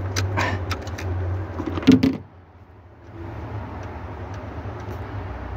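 Handling noise: a few light clicks and taps, then a sharp knock about two seconds in, followed by a steady faint hiss.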